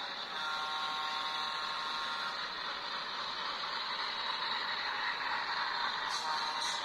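Alco RS3 diesel locomotive's 12-cylinder Alco engine running steadily with a mechanical clatter. A short steady tone sounds over it from about half a second in, for about two seconds.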